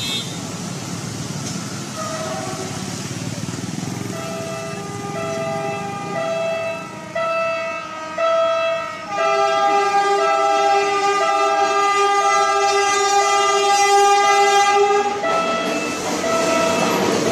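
Philippine National Railways train's multi-tone air horn sounding a chord over the rumble of the rolling train: a string of short toots starting about four seconds in, then one long blast of about six seconds that stops shortly before the end.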